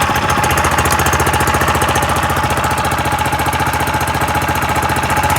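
6.5 hp Briggs & Stratton Vanguard single-cylinder boat motor running at a steady idle with an even pulsing beat, freshly started on its electric starter.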